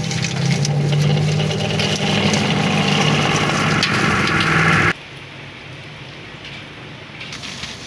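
Electric oil spinner's motor running with a steady hum and hiss, cutting off abruptly about five seconds in. After it comes a quieter crackling sizzle of shallots frying in oil.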